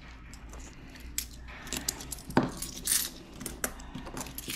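Loose coins clinking as they are handled and set down: a scattering of separate, irregular clinks and taps.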